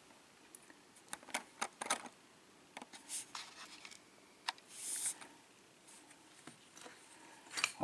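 Scattered light clicks and short scrapes of small lock pins and spools being handled and laid out from a disassembled pin-tumbler lock, with a brief rustle about five seconds in.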